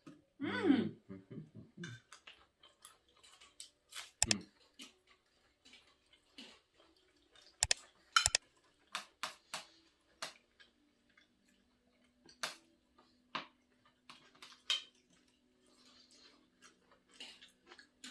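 People eating seafood: irregular sharp clicks and taps of cutlery and food being handled on plates, with chewing between them. A faint steady hum comes in about halfway through.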